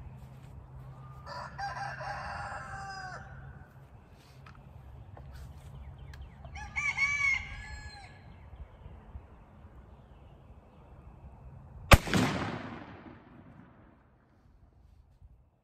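A rooster crows twice. About twelve seconds in, a pump-action shotgun fires a single shot with a 3½-inch Hevi-Shot No. 7 turkey load, and the report rings out and dies away over about two seconds.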